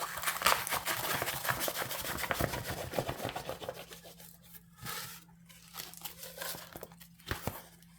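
A diamond painting canvas with its plastic cover film crinkling and crackling as it is rolled up the other way, busy for the first few seconds, then sparser crackles and a few sharp clicks.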